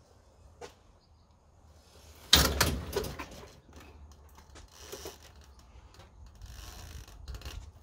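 A motorcycle's front tire being pushed into the steel wheel cradle of a hitch-mounted tow dolly: one sudden loud knock about two and a half seconds in as the wheel lands in the cradle, dying away within half a second. Fainter scrapes and scuffs follow.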